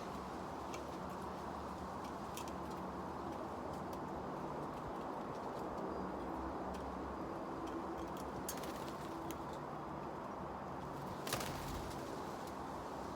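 Steady outdoor background noise of wind, with scattered light clicks and one sharper knock about eleven seconds in.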